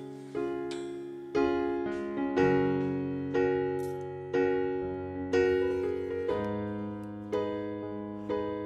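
Background piano music: slow chords struck about once a second, each one fading away before the next.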